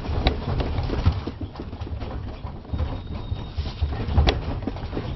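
Room contents rattling and knocking irregularly as a building shakes in a strong earthquake, over a constant low rumble. The sharpest knock comes about four seconds in.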